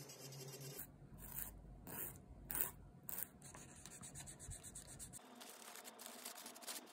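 An electric nail drill's hum stops about a second in. After that comes the crinkling and rubbing of a paper wipe as it is rubbed over the fingernails, with a few sharper rustles, the loudest about two and a half seconds in.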